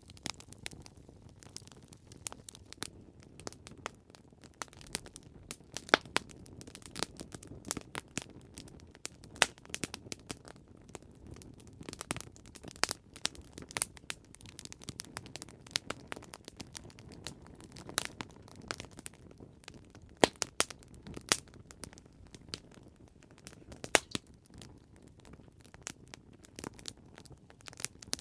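Campfire wood burning, with irregular sharp crackles and pops over a low, steady rustle of flames.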